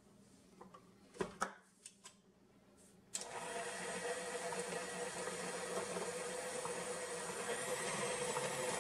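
A KitchenAid stand mixer's motor starts about three seconds in and runs steadily with a constant whine as its flat beater creams sugar into shortening in a stainless steel bowl. Before it starts, a few light knocks as the sugar is tipped from a plastic cup into the bowl.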